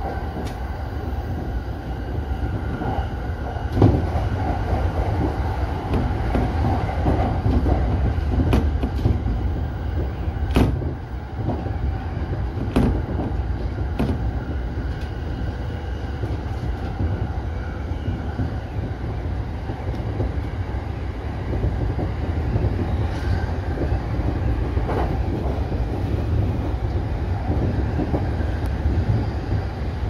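JR E233-series electric train running along the line, heard from inside the train: a steady low rumble of wheels on rail, with a few sharp clicks scattered through it.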